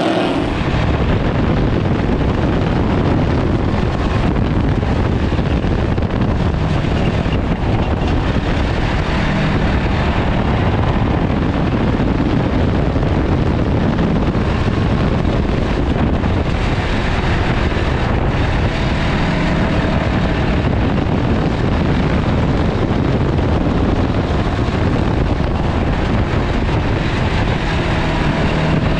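Heard from inside the cabin of a stripped Ford Crown Victoria race car at speed on a dirt oval: its V8 engine running hard under a steady, heavy rush of wind and chassis rumble, the engine note drifting up and down a little through the laps.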